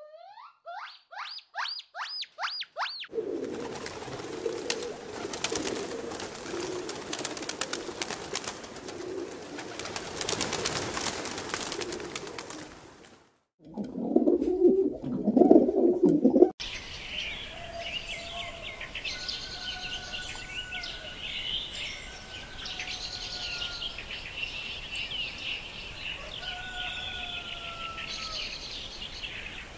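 A gibbon calling, a series of quick upward-sliding whoops that climb higher with each note, followed by a long stretch of noise. Then a pigeon cooing, low and loud, and after that small birds chirping and whistling steadily.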